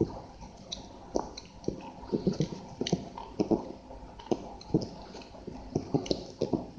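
Pages of a thick paperback book being leafed through in quick succession: short, irregular paper flicks and rustles as each page falls over.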